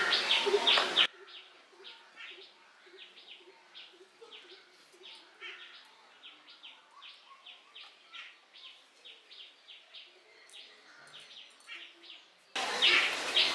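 A small bird chirping over and over in the background, faint, with short chirps coming about two to three times a second.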